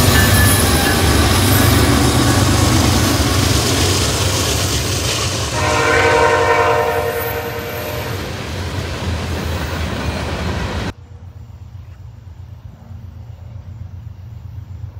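Norfolk Southern diesel freight train passing close: locomotive engines rumbling, then freight cars rolling by with wheel clatter on the rails. A train horn sounds for about two seconds near the middle. About eleven seconds in, the sound cuts off suddenly to a much quieter, steady distant rumble.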